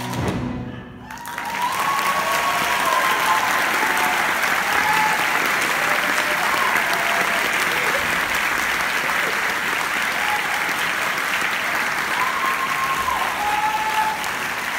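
Audience applause that begins about a second in, after a brief lull at the end of a choir song, and carries on thickly. A few voices whoop over the clapping.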